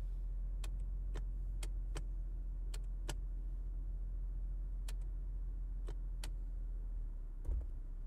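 Infiniti G37's 3.7-litre V6 idling as a steady low hum, with about ten sharp, irregular clicks from the opened-up shifter assembly as the lever is moved between positions and its microswitches and detents click.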